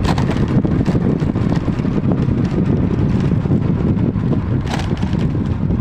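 Wind buffeting the microphone over the steady low drone of a moving vehicle's engine, heard from on board while riding along a dirt road.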